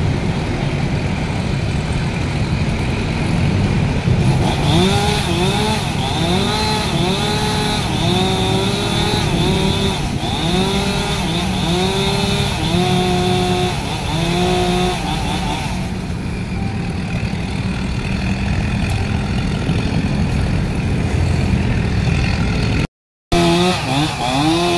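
Stihl MS 381 two-stroke chainsaw cutting overhead branches, revving up and dropping back about once a second. After the middle it runs more steadily, then cuts out briefly near the end.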